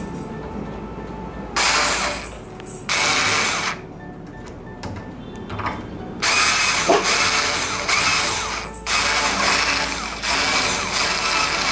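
Cordless electric screwdriver whirring in four bursts, two short ones and then two longer ones, as it turns the screws of a door latch plate.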